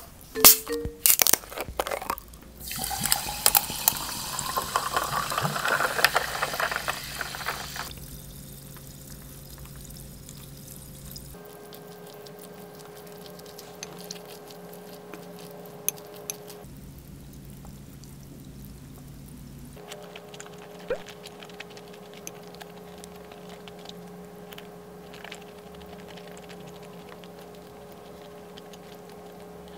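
Sparkling water poured from a bottle over ice cubes in a glass. A few clinks come first, then a pitch that rises as the glass fills, then fizzing that fades. Later there are faint clicks of a wooden spoon stirring rice in a ceramic bowl.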